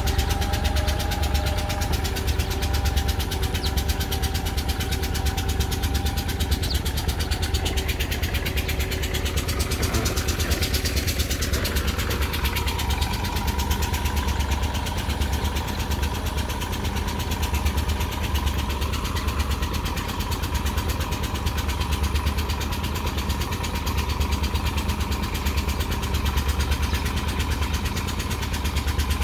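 Tractor diesel engine running steadily under load as it drags a levelling board through a flooded paddy field, a low, evenly pulsing rumble whose note shifts about ten to twelve seconds in.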